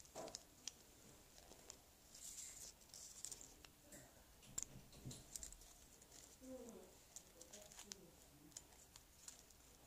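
Near silence with faint clicks and taps of small plastic toy parts being handled, and a bird cooing faintly about two-thirds of the way through.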